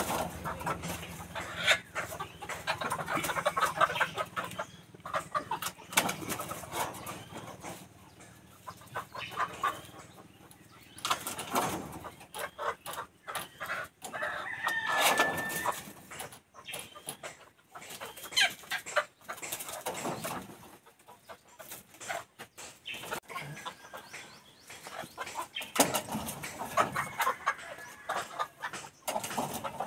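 White ready-to-lay pullets clucking and calling, with bursts of wing flapping as they are handled and put into wire layer cages. Short knocks and rattles come and go throughout.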